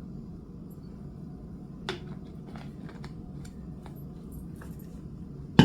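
A steady low hum with a few light clicks and taps scattered through it, then one sharp knock near the end, like something set down in a kitchen.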